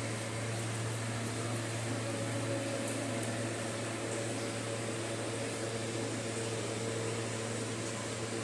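Steady low hum of room ventilation, with faint snips of scissors cutting wet hair now and then.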